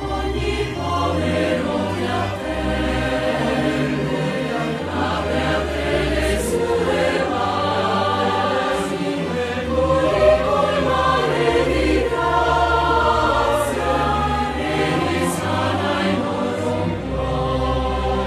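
Choral music: a choir singing in long held notes over instrumental accompaniment with a steady bass line.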